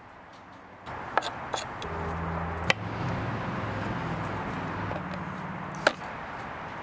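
Small knife working along lamb rib bones on a wooden cutting board while frenching a rack of lamb: scraping with a few sharp clicks and taps, two of them louder, over a steady low hum.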